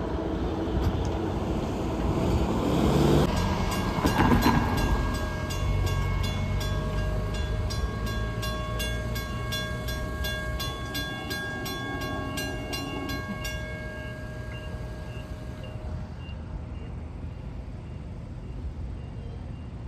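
Railroad grade-crossing warning bell ringing in fast, even strikes for about ten seconds, starting about three seconds in, over a low rumble.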